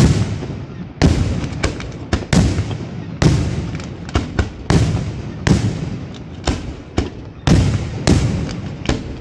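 Aerial firework shells bursting in quick succession, about one or two booms a second with sharper cracks between, each boom trailing off in echo.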